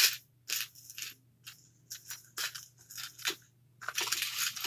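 Rummaging through craft supplies for a spare jump ring: a string of short, irregular rattles and clicks, with a longer rustling rattle about four seconds in.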